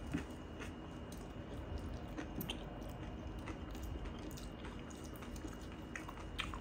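Close-up eating sounds: chewing with irregular wet mouth clicks, while fingers gather rice and curry on a steel plate.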